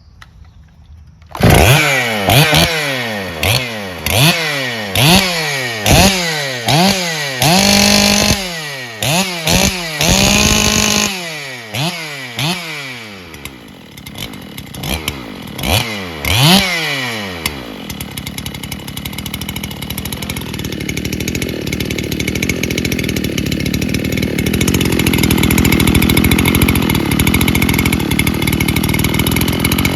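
Two-stroke chainsaw, a Makita DSC-6421 fitted with a 79cc Dolmar PS-7900 top end, comes in suddenly about a second and a half in and is revved in short blips about a dozen times, twice held high for a second or so. It then settles to a steady idle, set low.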